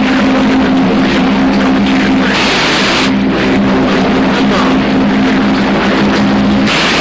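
Icom IC-7300 receiving on the 11-meter CB band at 27.025 MHz: a noisy off-air signal carrying steady low droning tones, with the static hiss surging twice, about two and a half seconds in and near the end.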